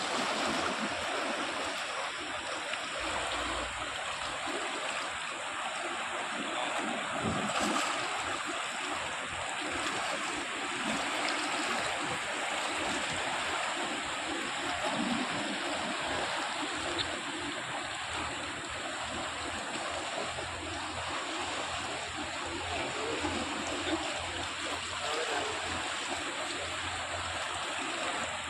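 Rain-swollen, muddy river in flood rushing past the bank: a steady, even roar of fast-moving water.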